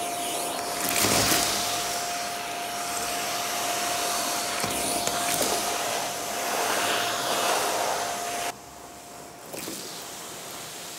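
Soniclean WhisperJet C2 canister vacuum running at full suction with a steady whine, its floor tool being worked over the floor so the suction noise swells and eases. About eight and a half seconds in, the whine cuts off suddenly and a quieter hiss is left.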